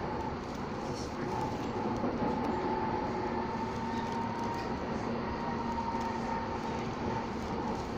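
Docklands Light Railway electric train running, heard from inside the carriage: a steady rolling rumble with a thin, steady whine above it.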